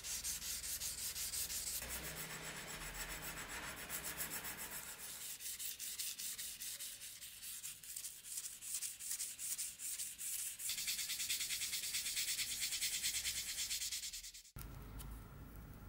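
Steel dagger blade being hand-sanded with an abrasive pad, in quick scratchy back-and-forth strokes that get louder for the last few seconds and then stop abruptly near the end.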